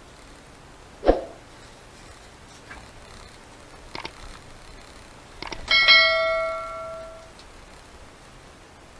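A sharp knock, a few faint ticks, then a quick cluster of clicks and a clear ringing ding from something struck, fading over about a second and a half.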